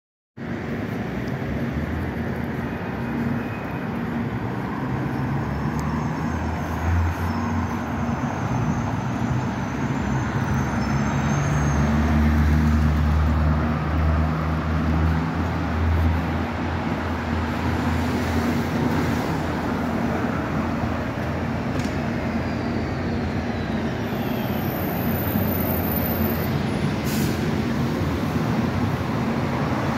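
City street traffic: cars and other motor vehicles passing on the road, a steady rush of engine and tyre noise. An engine's low rumble swells loudest around the middle.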